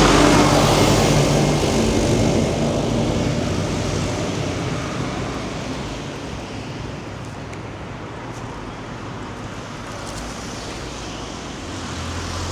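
A motor vehicle passing close by, its engine and tyre noise loudest at the start and fading away over about six seconds, then street traffic noise rising again slightly near the end.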